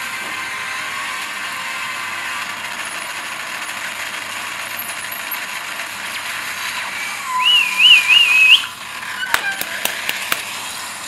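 Action-film teaser soundtrack playing: a steady hissing background, then a loud warbling whistle lasting about a second, followed by a quick run of sharp metallic clicks.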